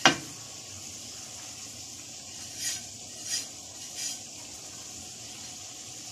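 Nigella and fennel seeds scattered by hand from a plate into a pan of cooking okra: three soft brushing sounds about a second apart over a faint steady hiss of the pan, after a sharp click at the very start.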